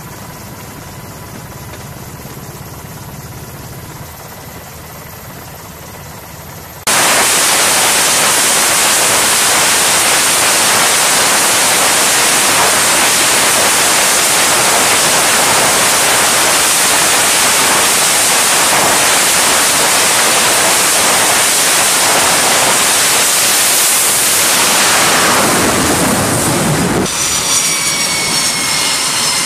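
Jet engines of an F/A-18 Super Hornet at full power on a carrier flight deck: a loud steady roar that starts suddenly about seven seconds in, after a quieter steady rumble. Near the end the roar eases and high whining tones fall in pitch, as the jet is launched by catapult.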